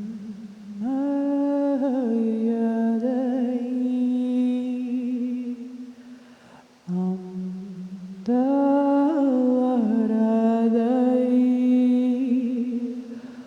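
Wordless vocal channeling: a voice humming and singing long held notes with no words, the pitch sliding and wavering between them. There are two long phrases, with a short lower note between them.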